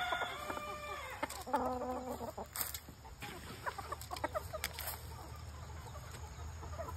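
Chickens clucking, with one held call about a second and a half in, followed by scattered short clucks.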